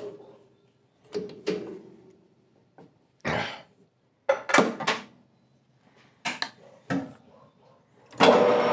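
Scattered metal clanks and knocks as a lathe's three-jaw chuck is tightened onto an aluminium bar with a chuck key. Near the end the lathe switches on and runs with a steady hum at low speed.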